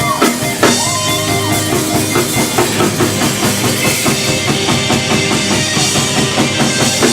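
Live rock band playing: a drum kit keeps a steady beat under electric guitar and bass, with a sliding high note about a second in.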